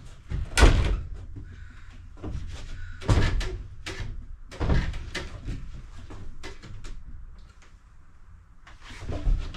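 A series of knocks and thuds as a cut piece is worked into place in a van's upfit, the loudest about half a second in.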